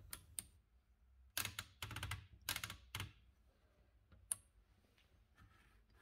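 Metallic clicks from the platen knob mechanism of an Olivetti M20 typewriter as the release button on the knob is pressed and the roller turned: a couple of small clicks at the start, two quick clusters of clicks between about one and a half and three seconds in, and one sharp click about four seconds in.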